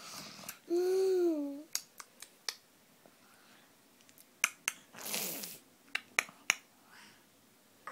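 Scattered small wet clicks and smacks of a toddler sucking and chewing on the fingers, with a short hummed vocal sound, rising then falling, about a second in and a breathy sniff about five seconds in.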